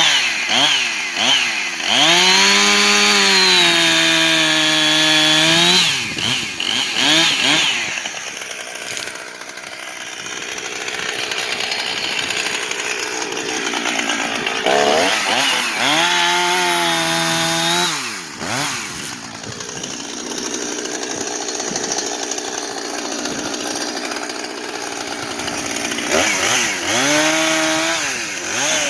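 Husqvarna 455 Rancher two-stroke chainsaw engine, running with no chain fitted. It is revved up and held high three times: about two seconds in, midway, and near the end, each time dropping back to idle. The revving shows the rebuilt engine running.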